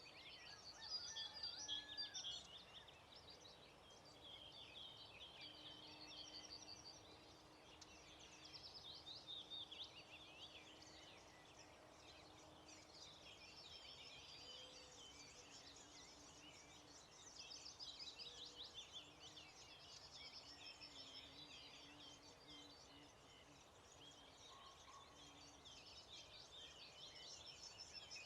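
Faint dawn chorus: many songbirds singing at once in a dense mix of overlapping chirps and trills. A faint low steady hum runs underneath for much of the time, breaking up in the second half.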